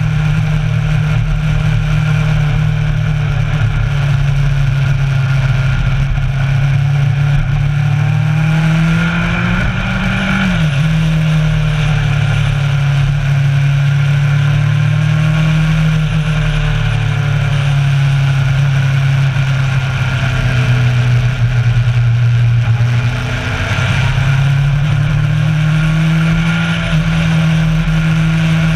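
Kawasaki Versys 1000's inline-four engine running under way. Its note climbs about nine to ten seconds in and then drops sharply, and it dips again near twenty-three seconds before rising.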